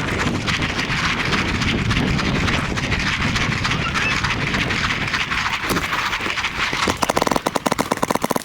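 A dense, continuous clatter, then about 7 s in a paintball marker opens up in rapid full-auto fire, roughly a dozen shots a second.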